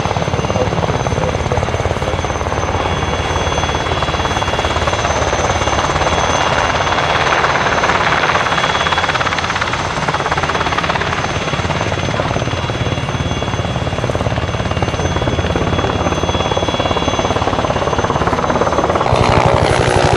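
Mil Mi-17 Hip helicopter in flight: steady blade chop from its five-blade main rotor over the high whine of its twin turboshaft engines, growing a little louder around the middle. The sound changes abruptly about a second before the end.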